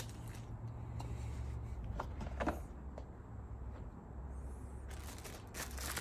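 Faint clicks and light rustling as small parts are handled, over a steady low hum.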